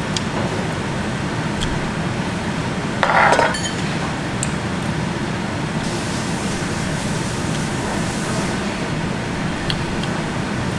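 Metal chopsticks and a spoon clinking lightly against stainless and ceramic dishes as someone eats, a few separate clicks over steady room noise, with one brief louder noise about three seconds in.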